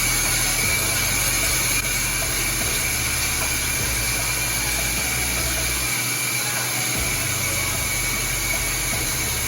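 Running water rinsing shampoo out of hair: a steady rush of water with a thin, constant high whistle in it.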